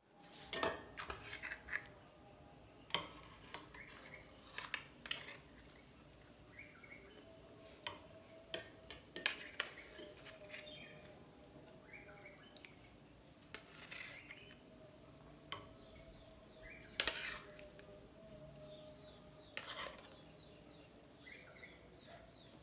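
Metal spoon clinking and scraping against a glass bowl as it moves and breaks up cubes of set jelly, in irregular taps with a few sharper clinks.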